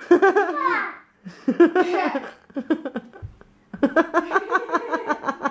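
A young child laughing in high-pitched bursts, breaking into a quick, even run of giggles near the end.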